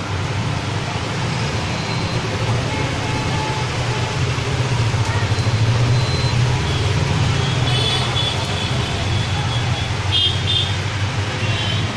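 Steady low rumble of road traffic, with a few faint high tones about eight and ten seconds in.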